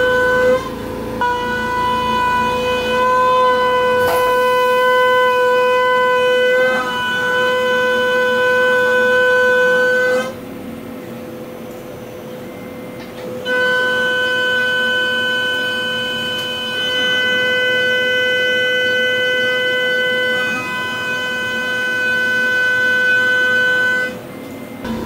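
Pocket NC v2-50 desktop CNC mill's spindle cutting 6061 aluminium in a roughing pass: a loud, steady high-pitched whine with overtones that holds one pitch. It drops to a quieter hum for about three seconds midway and briefly near the end, then the whine returns at the same pitch.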